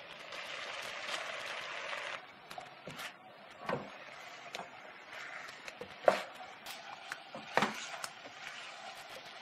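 Tofu and freshly added scallions sizzling in a hot nonstick wok. From about two seconds in, a silicone spatula stirs and tosses the stir-fry, with scrapes and sharp knocks against the pan over a fainter sizzle; the loudest knock comes about six seconds in.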